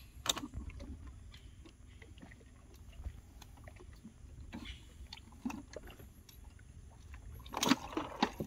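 Scattered knocks and clatter of handling in a small fishing boat over a low steady rumble, with a sharp knock just after the start and a louder scuffle near the end.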